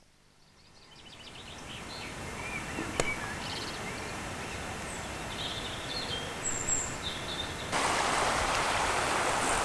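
Riverside ambience: a steady rush of flowing river water with small birds chirping, fading up over the first two seconds. There is a single sharp click about three seconds in. Near the end the rushing noise jumps suddenly louder.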